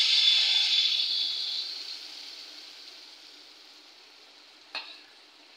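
Jaggery pitha batter poured into hot oil in a metal karai, sizzling loudly at first and fading over a few seconds to a soft, steady frying simmer. A short click near the end.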